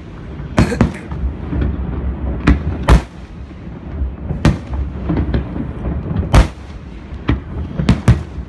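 Aerial firework shells bursting: about eight sharp bangs at irregular spacing, the loudest about three and six and a half seconds in, over a steady low rumble.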